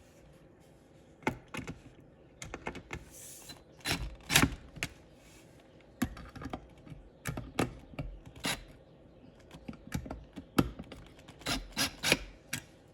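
Irregular clicks and light knocks from hand work on a wooden bench, a dozen or more spread unevenly, with the loudest about four seconds in and a quick cluster near the end.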